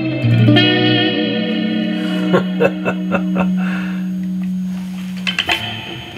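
Clean electric guitar played through an EarthQuaker Devices Astral Destiny octave reverb pedal, set to its second preset: ringing notes with a long washy tail. A low note is held through the middle under a few short choppy strokes, and the sound thins out near the end.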